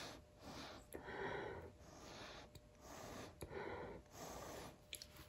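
A person breathing audibly close to the microphone, a series of soft breaths in and out.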